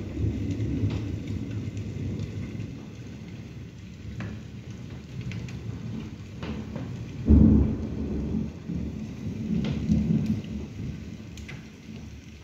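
Thunder rumbling over steady rain, with a sudden louder clap about seven seconds in. The rumble swells again shortly after and dies away near the end, while scattered drips tick throughout.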